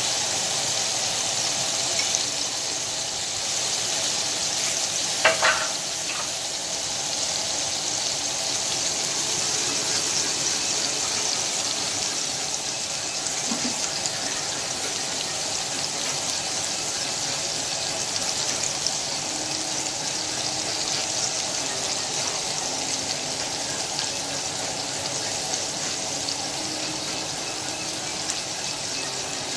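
Burger patties frying in hot oil in a cast-iron skillet, a steady sizzle. A short knock about five seconds in.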